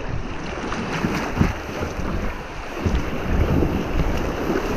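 Fast river water rushing and splashing around a kayak running a riffle, with wind buffeting the microphone as a low rumble that gets heavier about three seconds in.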